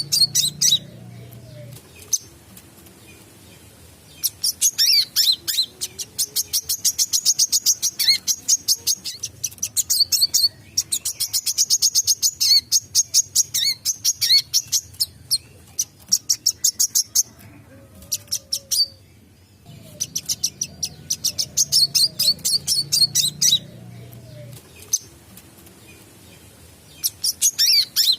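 A wiceh sunbird singing vigorously, the 'gacor' song kept for tutoring songbirds: fast runs of sharp, high chirps in bursts of a few seconds, with short pauses between them.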